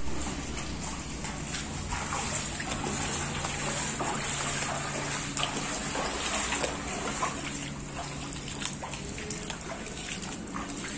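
Footsteps wading through shallow floodwater, splashing and sloshing in irregular steps.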